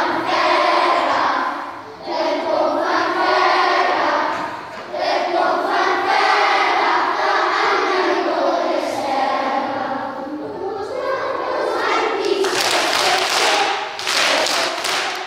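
A group of young children singing together in sung phrases, with short breaks between lines. Near the end the singing gives way to a run of loud, noisy sounds.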